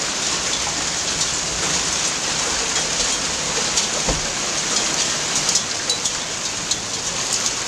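Hail pelting down in a dense, steady hiss of impacts, with sharper individual cracks of stones striking, more frequent in the second half. A single dull thump about four seconds in.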